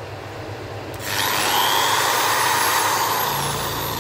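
Polymak 10 mm 450-watt corded electric drill running free, with no load on the chuck. It runs quietly for about a second, then the motor speeds up sharply to a loud, steady whine that holds to the end.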